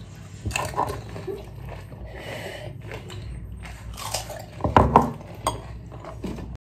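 Mouth sounds of fast eating of pani puri: crisp puri shells crunching and being chewed wet, with clinks of ceramic bowls. Irregular bursts, loudest a little under five seconds in, over a low steady hum.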